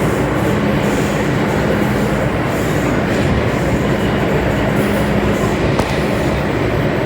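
Interior of a Metro-Cammell M-Train (MTR subway EMU) running underground. The wheels and rails give a steady rumble, and a low hum comes and goes several times.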